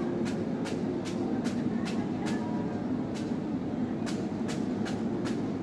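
Steady low hum of a large passenger ship's machinery running at the quayside, with a sharp ticking about two to three times a second over it.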